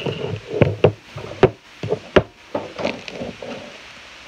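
Elastic plastic slime and its small plastic container being handled on a desk: a string of irregular sharp clicks and knocks, the loudest about a second and a half and two seconds in.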